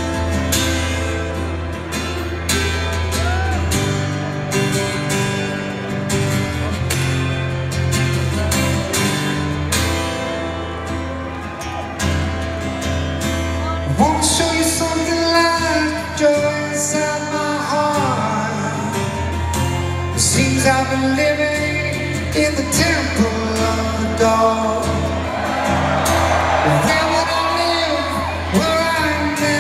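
Live solo performance: an acoustic guitar played with a male voice singing, heard with the echo of a large arena.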